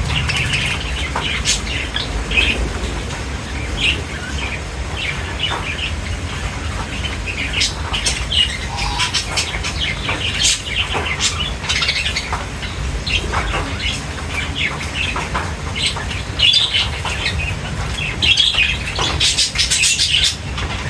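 A group of budgerigars chirping and chattering in quick, short, irregular calls, over a steady low hum.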